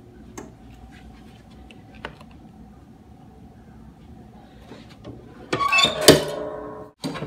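Clamshell heat press pulled shut by its handle: a loud metallic clatter with ringing from the springs and arm, ending in a sharp clunk as the platen locks down. Before it come a few light taps as the box and laminating sheet are set on the platen.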